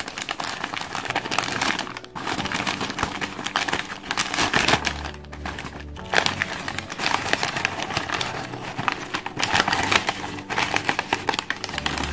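Newspaper crinkling and rustling as it is pulled open by hand, with background music underneath.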